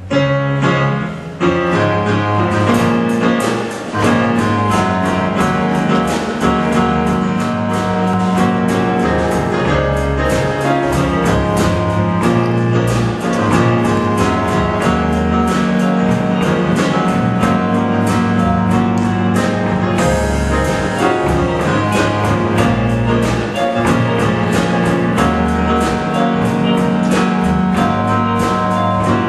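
Instrumental gospel music with keyboard over a steady beat.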